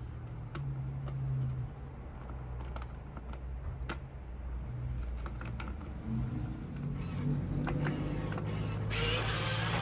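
Toy RC dump truck's electric drive motors and plastic-and-metal gearbox running in short spurts with a low hum, with scattered sharp clicks. About nine seconds in, a louder, rasping gear noise starts.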